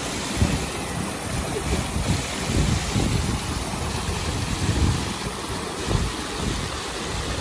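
Water running and splashing over rocks in a small man-made garden stream and cascade, a steady rushing hiss. Wind buffets the microphone in low, uneven gusts.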